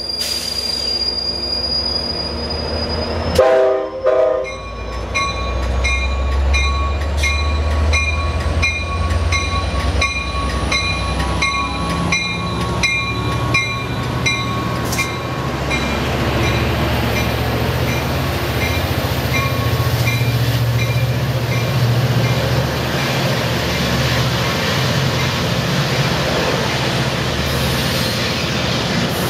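Amtrak F59PHI diesel locomotive departing: a short horn blast about three and a half seconds in, then its bell ringing about twice a second while the diesel engine throttles up with a low rumble. The bell fades after about twenty seconds as the bilevel passenger cars roll past with steady wheel-on-rail noise.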